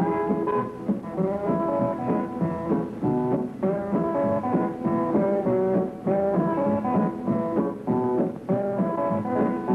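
Hillbilly swing band playing a rag, with guitar among the instruments and a steady rhythm of chord changes.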